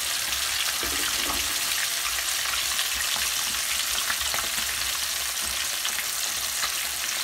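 Flour-coated chicken deep-frying in hot oil: a steady sizzle full of fine crackles from the bubbling oil.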